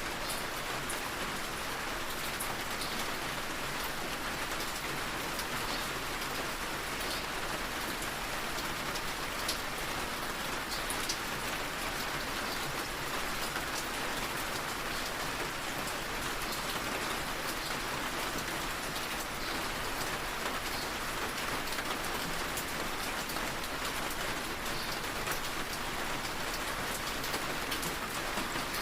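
Steady rainfall with scattered drops tapping, as heard from indoors against a window.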